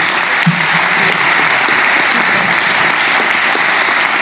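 Audience and panel applauding: a dense, steady clapping of many hands.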